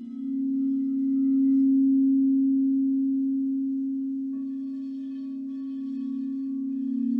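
Crystal singing bowls ringing: one low bowl holds a steady tone that swells and slowly ebbs, and a second bowl is struck a little past halfway, adding higher ringing tones over it.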